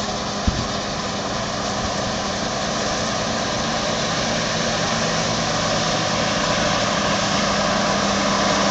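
John Deere 9770 STS combine harvester running steadily while harvesting wheat: a dense mechanical din with a steady low hum, growing slowly louder. A single sharp knock sounds about half a second in.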